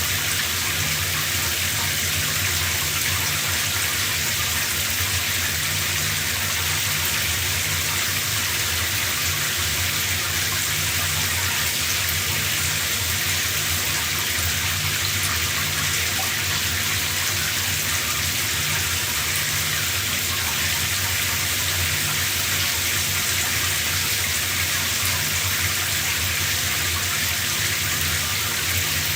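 A running shower: water spraying and splashing in a steady, unbroken hiss, with a low rumble underneath.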